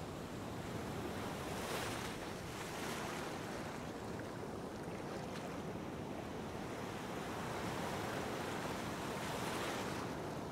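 Ocean surf: a steady rush of breaking waves that swells louder about two seconds in and again near the end.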